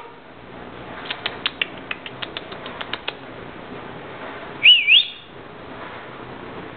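A pet parrot making a quick run of about a dozen sharp clicks, then one loud wavering whistle that climbs to a high pitch about five seconds in.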